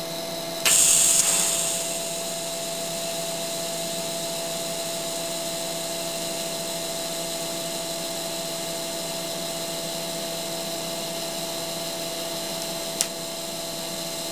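TIG welding arc on steel: the arc strikes about a second in with a sudden loud crackling hiss that settles within a second or two into a steady quiet hiss over the welding machine's constant hum. A sharp click near the end comes as the arc is stopped.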